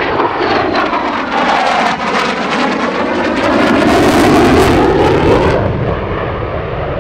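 F-35 Lightning II fighter jet flying a high-power turn on afterburner: a loud, rushing jet noise with slowly sweeping, phasing bands as it moves past, and crackling strongest in the middle seconds. The upper hiss drops away about two-thirds of the way through.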